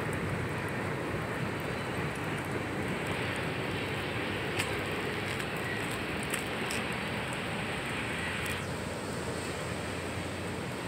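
Freight cars of a long train rolling past with a steady noise of wheels on rail, with a few light clicks around the middle.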